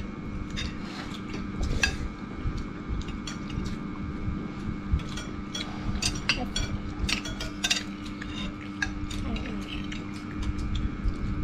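Metal spoons clinking and scraping against ceramic rice bowls during a meal: many small, irregular clicks over a steady low hum.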